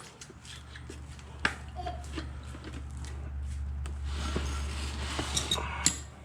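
Scattered clicks and knocks of hands and tools working an old motorcycle tire off its rim, over a steady low hum.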